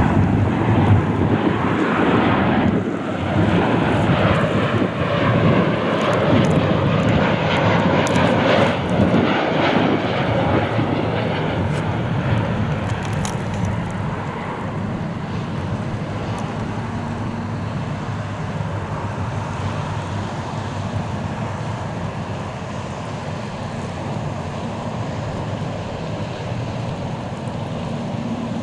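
Boeing 737-800 airliner passing close on final approach with its landing gear down, its twin CFM56 jet engines making a loud, rushing noise. About 14 seconds in the sound drops to a quieter, steady jet rumble.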